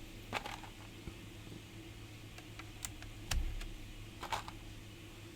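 Scattered sharp clicks and taps of Gateron Blue mechanical keyboard switches being handled and pressed into a keyboard's switch plate, about five of them, the loudest a duller knock a little past the middle.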